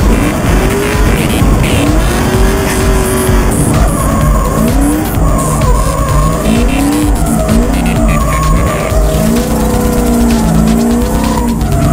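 Drift car heard from inside the cabin, its engine running under load while the tires squeal in repeated rising and falling wails as the car slides.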